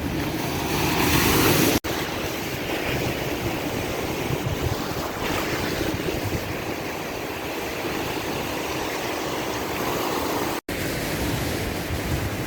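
Surf washing in, with wind rushing over the microphone. The sound cuts out for an instant about two seconds in and again near the end.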